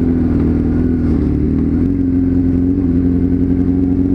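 Motorcycle engine running under a steady road cruise, its note dipping slightly about a second in and then holding level.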